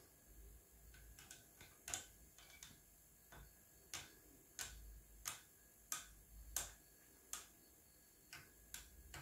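Faint, irregular light clicks, about twenty of them, from a plastic spoon knocking against the inside of a glass jar while a thick liquid mixture is stirred.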